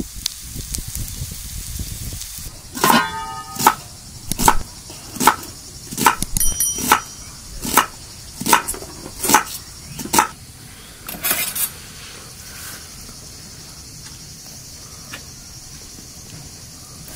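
About a dozen slow, sharp chopping strikes, roughly one a second, the first with a metallic ring; after them only a steady hiss.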